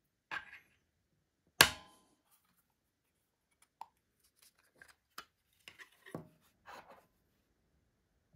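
Small plastic clicks and snaps from the back of an IKEA STYRBAR remote as its battery-cover lock is turned with a coin and the cover is pried off, with one sharp, loud click about a second and a half in and lighter clicks and scraping later.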